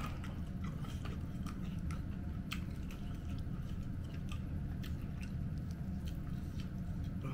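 A person chewing and eating, with irregular sharp clicks from the mouth over a steady low hum.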